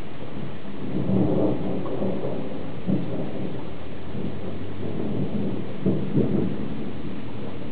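Thunder rumbling. It swells about a second in and rolls on with several sharper cracks, the loudest near the start and about three-quarters through, over a steady background hiss.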